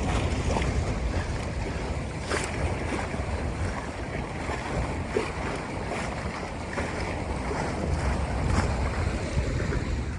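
Wind buffeting the microphone over water washing along the hull of a small sailboat under sail, with a few faint splashes.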